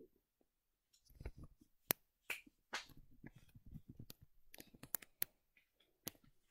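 Handling of a foam yoga mat against a wire pet pen: scattered sharp clicks with soft rustling in between.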